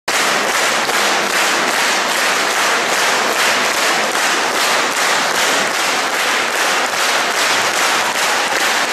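A large concert-hall audience applauding steadily, the clapping falling into a regular beat.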